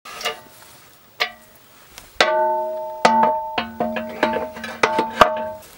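Steel insert bucket knocking against the forestry grapple's jaws as it is fitted by hand: about eight irregular metallic clanks, each leaving the same ringing tones hanging.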